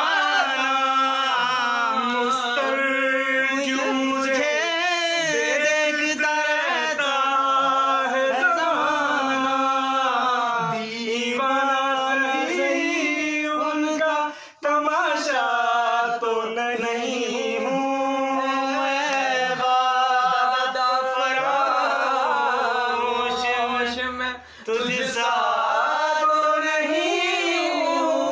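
Men singing loudly without instruments, the voice holding long, wavering notes. The singing breaks off briefly twice, about halfway through and again near the end.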